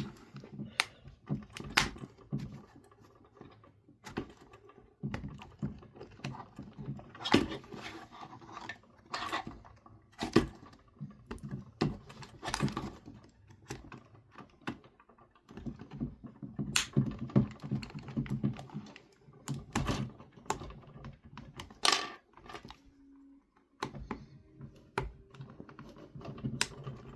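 Hard plastic clicking, tapping and scraping as a plastic pry tool works along the seam of an Xbox controller's shell. Irregular sharp clicks are the shell's retaining tabs popping loose.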